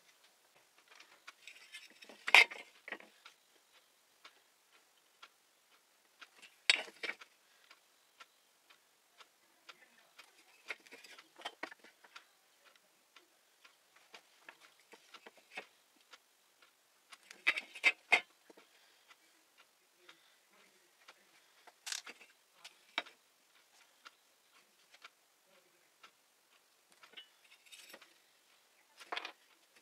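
Scattered light clicks and knocks as small wooden leg discs and a combination square are picked up and set down on a wooden board, a few sharper taps standing out among quieter handling sounds.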